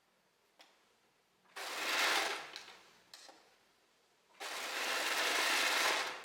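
Overlocker stitching jersey fabric in two short runs, the second longer, stopping and starting as the fabric is guided a little at a time. A couple of short clicks come in the pauses.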